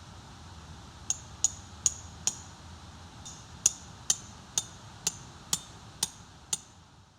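Hammer driving a tent peg into the ground: four quick strikes, a short pause, then seven more, each with a brief metallic clink.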